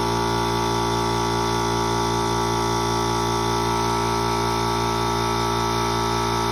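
Oil-lubricated Central Pneumatic electric air compressor running steadily while it builds tank pressure: a loud, even hum made of many steady tones.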